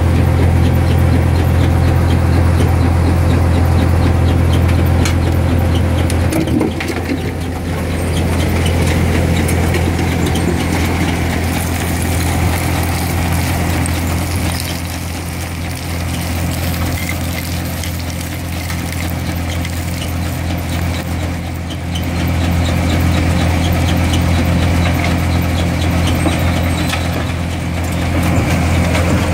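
Red Rhino 5000 mobile concrete crusher running steadily on its diesel engine, with a strong low hum. Crushed concrete tips off the end of the hydraulically driven conveyor belt. The engine hum drops back about six seconds in.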